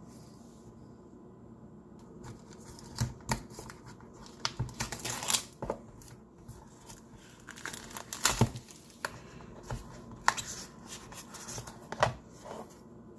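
A flashlight's retail packaging being opened and handled by hand: irregular rustles and sharp clicks of box and insert, busiest from about three seconds in until near the end.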